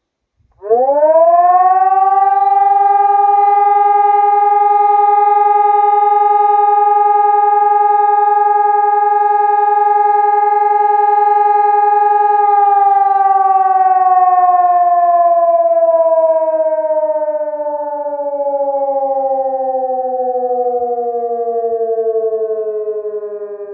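Two-horn electronic civil-defence siren sounding a short test alarm. It rises quickly to a loud steady tone held for about twelve seconds, then slowly falls in pitch as it winds down.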